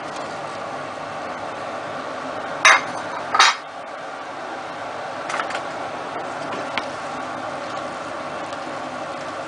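Chopped celery boiling in a stainless steel pot of salted water, a steady hiss. About three seconds in come two sharp, loud clatters of kitchenware close together, and a few fainter knocks follow as the celery is stirred with a wooden spoon.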